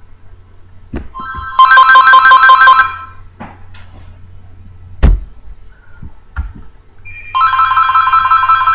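Telephone ringing twice: a warbling electronic ring about two seconds long each time, with about four seconds between rings. A single sharp thump falls between the rings.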